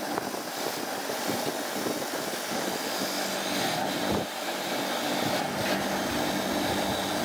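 Steady, even mechanical noise from a workshop tool cleaning a car's starter motor, running without a break.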